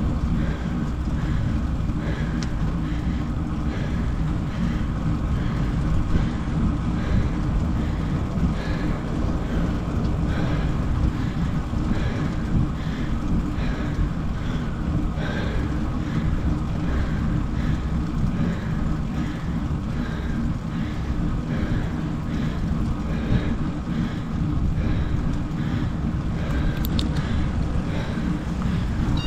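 Wind buffeting the microphone in a steady low rumble, with a faint regular rhythm of soft strokes underneath, about three every two seconds.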